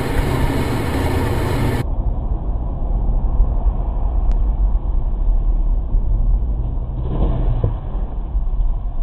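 Dashcam recording from inside a car on the move: a steady low rumble of road and engine noise. About two seconds in it switches abruptly to a more muffled recording, and a brief burst of noise comes about seven seconds in as a truck and a car collide ahead.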